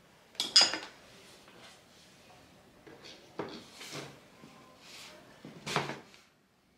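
Sewing things being put away into a round wooden box on a wooden table: a clatter about half a second in, then several light wooden knocks and bumps as the box is handled, the last near the end before the sound stops.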